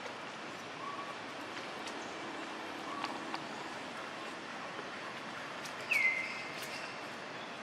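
Steady outdoor background hiss with a few faint chirps, and one short high-pitched animal call about six seconds in that drops quickly in pitch and then holds briefly.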